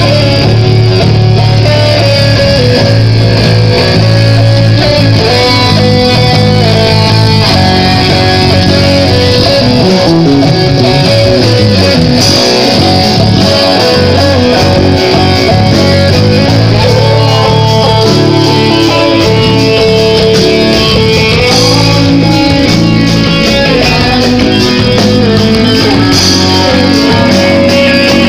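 Guitar-led background music, loud and continuous.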